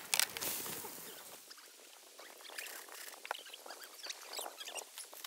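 Two sharp knocks at the start, then faint scattered crackling and ticking from meat sizzling on a small camp grill.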